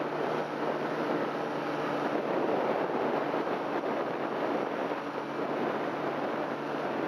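A paramotor's engine and propeller running steadily in flight, a constant drone under wind rushing over the microphone.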